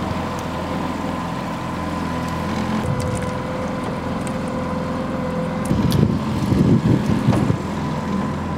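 Suzuki tiller outboard motor running steadily at cruising speed, pushing an aluminium boat along, with a steady engine hum. About six seconds in there is a louder, rougher stretch for a second or so.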